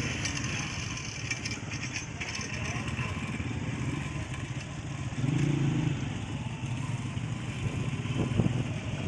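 An engine running steadily with a low pulsing note, swelling briefly about five seconds in.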